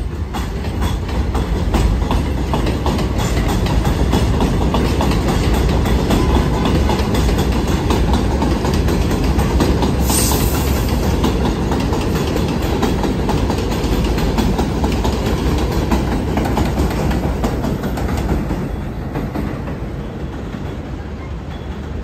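New York City Subway 6 train of R62A cars running on elevated steel track: a loud, steady rumble with wheels clacking over the rail joints. A brief high hiss comes about halfway through, and the sound eases off near the end as the train draws away.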